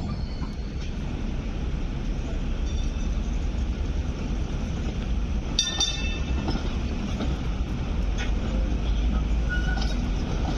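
Hong Kong light rail vehicles rolling slowly over depot trackwork: a steady low rumble of wheels on rail, with a brief high wheel squeal or screech about halfway through.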